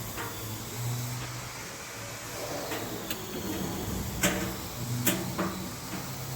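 Elevator door operator running the center-opening car doors: a low motor hum that comes and goes as the doors slide, with a few sharp clicks and knocks in the second half.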